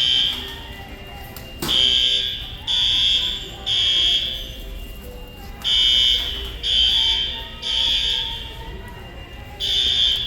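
Building fire alarm horns sounding in the temporal-three evacuation pattern: groups of three loud, high-pitched blasts about a second apart, each group followed by a pause of about a second and a half.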